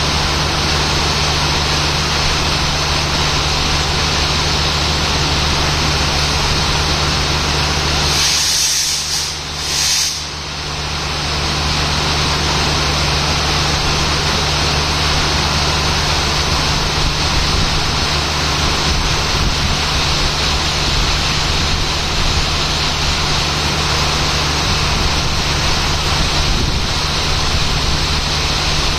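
Heavy rain pouring down steadily, with the low hum of a WDP-4 diesel locomotive's EMD two-stroke engine idling underneath. The sound briefly dips and thins about eight to ten seconds in.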